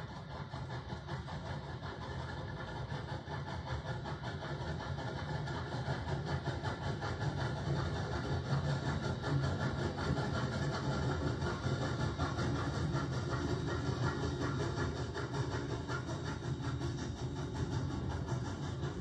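A doubleheader of narrow-gauge steam locomotives, one of them Rio Grande K-27 No. 464, running past, followed by passenger coaches rolling by on the rails. The result is a steady, dense rumble that grows somewhat louder partway through.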